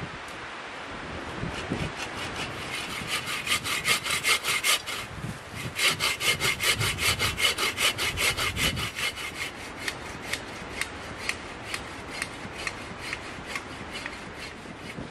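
Hand saw cutting wood in quick, regular strokes, about four or five a second, with a short pause about five seconds in. In the second half it slows to lighter, more widely spaced strokes.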